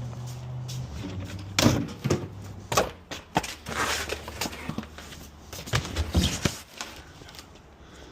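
Pieces of scrap wood and board being handled and tossed, giving a string of irregular knocks and thuds with a scraping shuffle in the middle.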